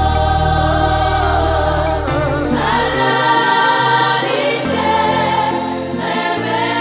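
Gospel song: sustained sung vocals with choir harmonies over a band, the bass changing note every second or two.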